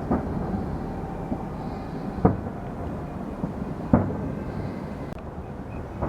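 Fireworks shells bursting in the sky: three sharp booms about two seconds apart, the last two the loudest, over a continuous low rumble of further bursts.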